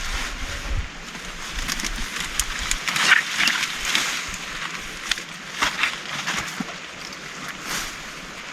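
Heavy rain falling steadily, with scattered sharp drips and splatters through it.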